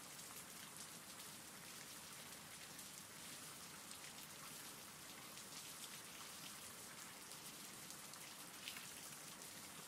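Faint, steady rain: an even hiss of falling drops with many small ticks.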